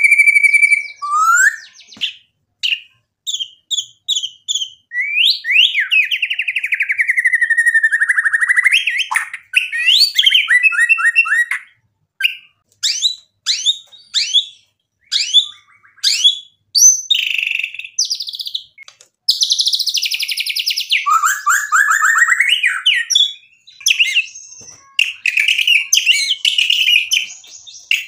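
White-rumped shama singing a long, varied song full of imitated phrases. It runs as a string of separate phrases with short pauses between: clear whistles and sweeping notes alternating with fast trills and rattling series.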